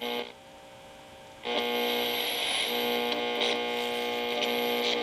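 Graymark 511 regenerative radio's speaker sounding a steady buzzing tone: the signal generator's modulated 10 MHz test signal being received. It cuts in about a second and a half in, after a short quiet.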